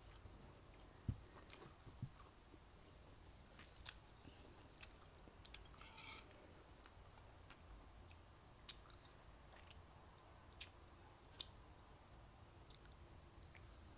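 Faint close-up eating sounds: chewing with small wet mouth clicks. About six seconds in, wooden chopsticks knock and scrape inside a ceramic bowl, which rings briefly.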